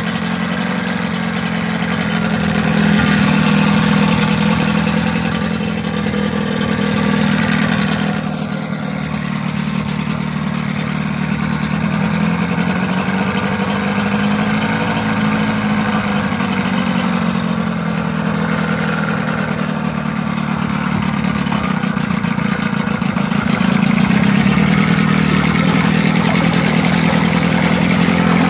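Johnson 15 HP two-stroke twin tiller outboard running steadily in a test tank, its engine speed drifting a little up and down.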